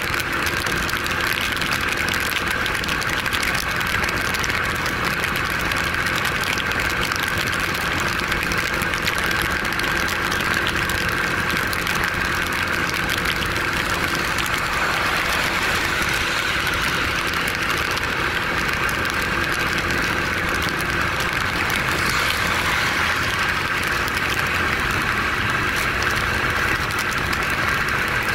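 A 150cc single-cylinder Yamaha motorcycle engine running steadily at cruising speed. Wind and rain noise over the microphone and the hiss of tyres on the wet road are mixed in.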